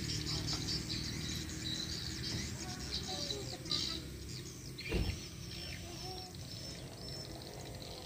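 Swiftlets chirping and twittering: a dense run of short, high chirps, busiest in the first half, over a low background rumble. A single dull thump about five seconds in.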